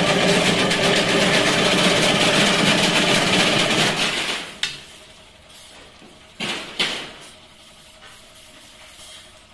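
Chain-link fence weaving machine running loudly as it draws galvanised wire off the coil, stopping about four seconds in. Two short sharp noises follow a couple of seconds later.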